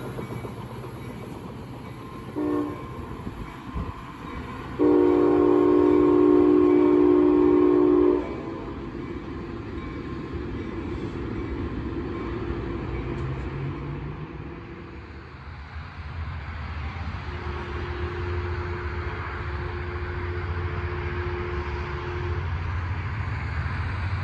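Trinity Railway Express commuter-train locomotive horn: a short blast, then a loud chord held for about three seconds, followed by fainter, more distant horn notes. A low train rumble builds near the end.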